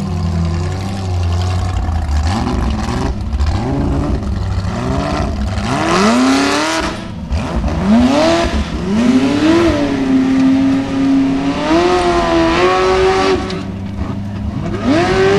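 Unlimited-class formula offroad buggy's engine revving hard in repeated surges as it climbs a steep dirt hill on paddle tyres. Each surge rises in pitch, and one high rev is held for a second or two about two-thirds of the way through.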